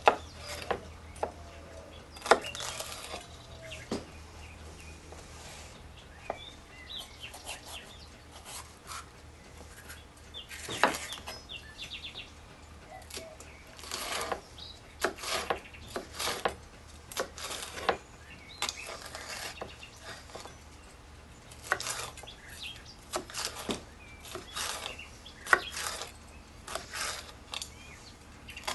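Chef's knife slicing a light green pepper into strips on a wooden cutting board: irregular sharp knocks of the blade against the board, in quick runs with short pauses.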